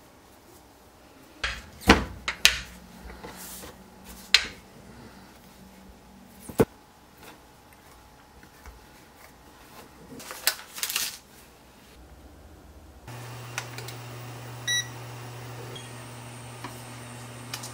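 Hands working bagel dough on a wooden cutting board: a scattering of soft knocks and taps as dough balls are set down and pressed into rings. About 13 s in the sound switches to a steady low hum and light bubbling from water boiling in a pan on an electric cooktop, with one brief metallic clink from a slotted skimmer.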